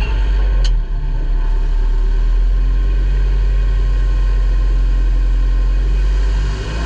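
Ministock race car's engine running at steady revs, heard from inside the cockpit as a loud low drone. There is one sharp click about two-thirds of a second in, and the drone dips briefly near the end.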